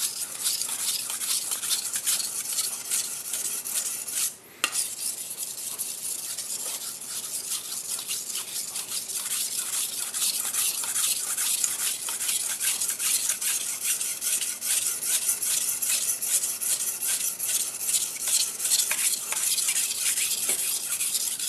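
Steel gyuto blade being stroked back and forth on a wet 500-grit whetstone, a continuous gritty scraping made of many quick repeated strokes, with a brief stop about four and a half seconds in.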